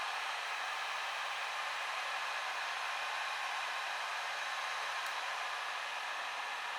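Heat gun blowing steadily, melting crayon wax into a void in an end grain cutting board.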